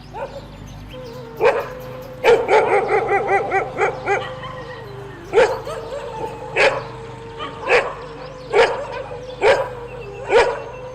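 A dog barking: one bark, then a quick run of about seven barks at roughly four a second, then single barks about a second apart.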